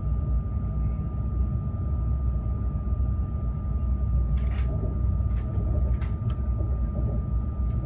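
Carriage interior of a Harmony high-speed EMU train running: a steady low rumble with a thin, high-pitched steady tone over it, and a few light clicks in the second half.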